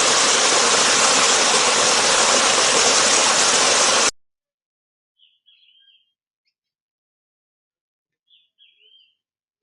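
A loud, steady hiss that cuts off suddenly about four seconds in, followed by near silence in which a bird gives two short, faint chirping phrases a few seconds apart.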